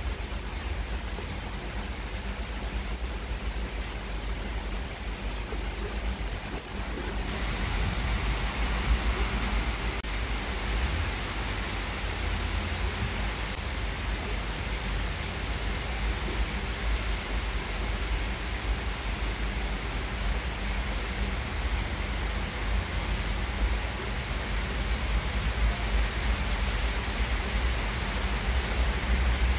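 Heavy rain falling steadily, an even hiss that gets louder about seven seconds in.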